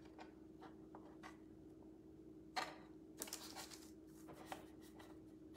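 Faint rustles and light taps as pre-sliced cheese slices are handled and laid on parchment paper, the clearest about two and a half seconds in and a short run just after, over a low steady hum.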